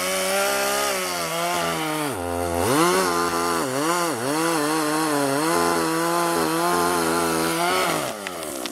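Two-stroke chainsaw at high revs cutting into a tree trunk. Its pitch sags several times as the chain bogs in the wood and then picks back up, and the saw comes off the throttle near the end.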